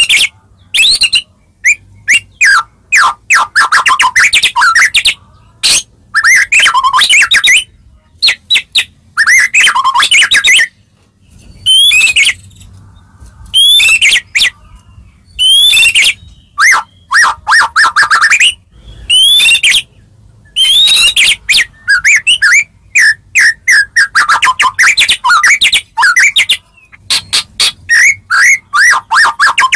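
White-rumped shama singing: loud, varied phrases of clear whistles and rapid chattering notes, each a second or so long, with short pauses between them.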